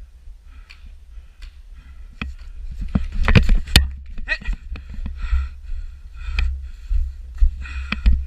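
A steady low rumble of wind and movement on a body-worn microphone, with a run of sharp clicks and knocks that is loudest and densest about three to four seconds in, and faint voices in the distance.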